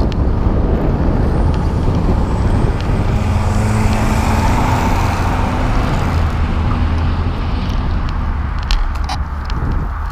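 Wind buffeting the microphone of a camera on a moving bicycle, over a steady rumble of riding on asphalt, with a motor vehicle going by, loudest about four to five seconds in. A few sharp clicks near the end.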